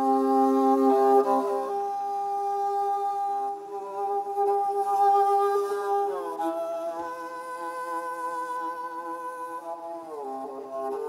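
Igil, the Tuvan two-string bowed fiddle, playing slow, long-held notes, with the pitch sliding down about six seconds in and again near the end.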